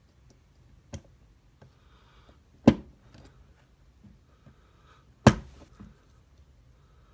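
Two loud, sharp metallic knocks about two and a half seconds apart, with a lighter click about a second in. They come from the Abus E20 padlock being struck and worked while its back plate is forced off.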